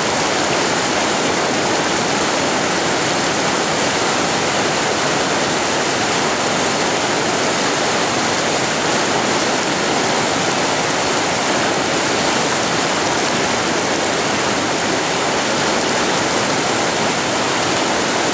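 Whitewater of a slalom course rushing and churning steadily.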